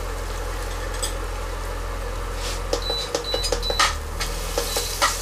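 Onions and ginger garlic paste sizzling in a nonstick pan on an induction hob, over a steady low hum. From about three seconds in, a slotted metal spoon scrapes and clicks against the pan as the paste is stirred through.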